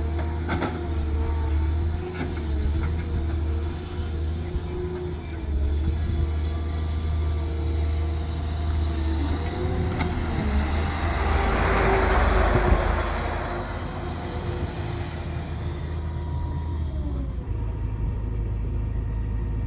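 Diesel engine of a Cat M318D wheeled excavator running steadily, with a low hum and a few steady whining tones. A rushing hiss swells and fades about eleven to thirteen seconds in. The engine note shifts about three seconds before the end.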